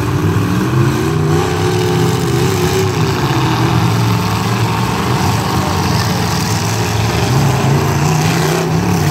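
Engines of demolition derby pickup trucks running and revving, their pitch rising and falling as the trucks maneuver.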